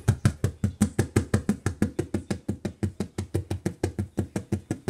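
Rapid, even knocking, about seven knocks a second.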